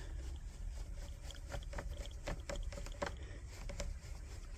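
Scattered light clicks and taps at irregular intervals over a low steady hum.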